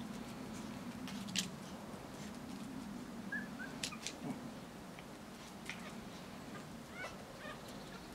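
Bolonka Zwetna puppies giving faint, short high squeaks a few times, mostly a little past the middle and again near the end, with several sharp clicks and a steady low hum underneath.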